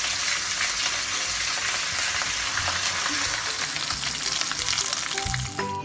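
Sambal-stuffed torpedo scad (cencaru) frying in hot oil in a wok, with a steady sizzle. Guitar music comes in near the end.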